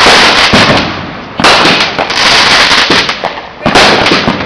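Consumer fireworks going off in quick succession: three loud blasts, near the start, about a second and a half in and near the end, each fading out, with smaller pops between.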